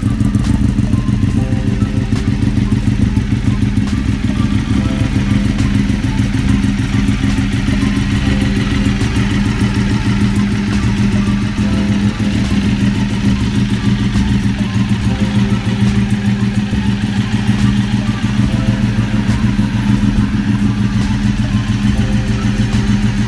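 Ducati 848 Evo's L-twin engine idling steadily, with a rapid pulsing exhaust beat.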